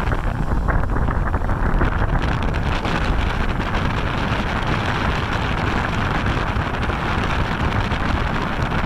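Bass boat's outboard motor running at speed, with heavy wind rushing over the microphone as the boat runs across the water.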